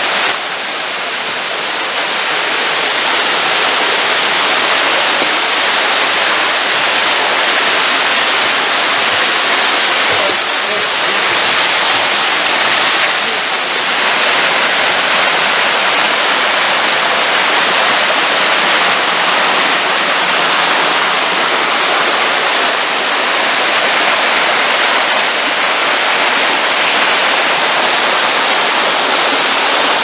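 Steady rush of water from a small waterfall cascading over rocks: a loud, even hiss-and-splash with no breaks.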